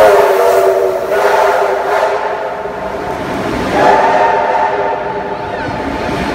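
Steam locomotive's multi-note whistle sounding two long blasts, the first at the start and the second about four seconds in, over the rumble of passenger carriages rolling past.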